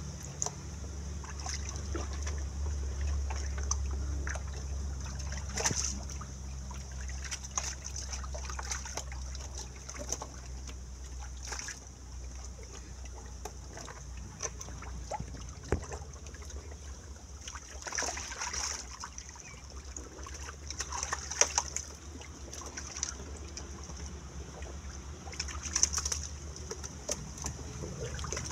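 Shallow muddy water splashing and sloshing as catfish are grabbed by hand and dropped into a plastic crate; irregular small splashes, with a few louder ones scattered through.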